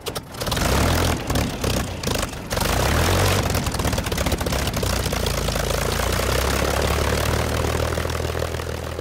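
Piston engine of a propeller aircraft running, uneven over the first couple of seconds and then steady, beginning to fade near the end.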